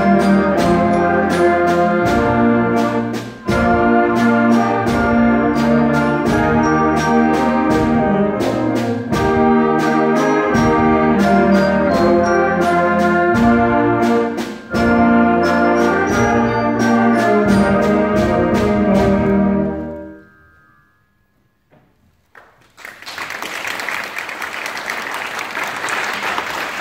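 A school wind band of brass and saxophones playing a rhythmic piece full of short, accented chords, ending about twenty seconds in. After a brief silence the audience applauds.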